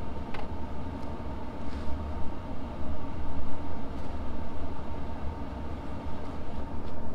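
Wind rumbling on the microphone, with a faint steady high-pitched whine underneath.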